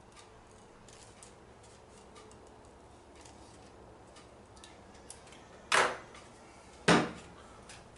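Ratcheting screwdriver clicking faintly and irregularly as it drives a wood screw into a wooden dowel. Near the end come two loud, sharp knocks about a second apart.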